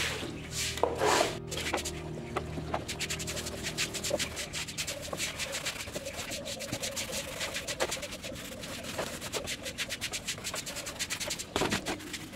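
Scrubbing: quick, repeated rubbing strokes over a computer part being cleaned.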